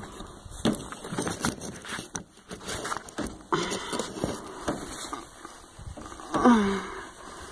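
Handling noise from a phone being gripped and moved close to the body: scattered clicks, rubbing and crackles. About six and a half seconds in comes a short wordless vocal sound, falling slightly in pitch, the loudest thing heard.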